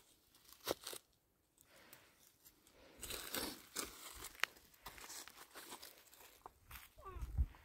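Crinkly rustling and crackling with scattered sharp clicks, busiest a few seconds in, then a short wavering squeak and a low thump near the end.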